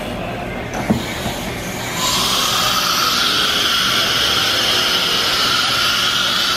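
Industrial machinery running steadily. A single knock comes about a second in, and about two seconds in a loud, steady, whining hiss sets in and holds until near the end.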